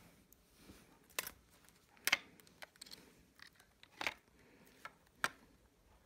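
Sharp clicks and light knocks from cylindrical lithium-ion cells being handled against a plastic power bank case: four clear clicks at irregular spacing, with a few fainter ticks between.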